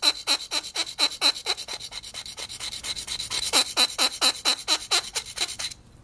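Steel tip of a multi-tool can opener scraped rapidly back and forth on a Spyderco Sharpmaker ceramic stone, about four strokes a second, each with a high squeal: a god-awful sound. The tip is being reprofiled on the stone's back side to make it pointier. The scraping stops shortly before the end.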